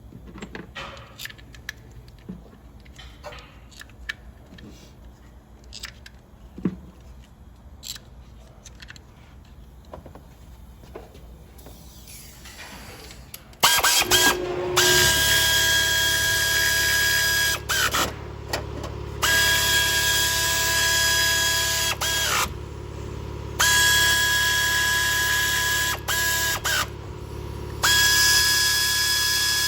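Small clicks and knocks of tools and parts being handled, then about halfway through a handheld power tool starts up: its motor runs with a steady whine in four stretches of about three seconds each, stopping briefly between them.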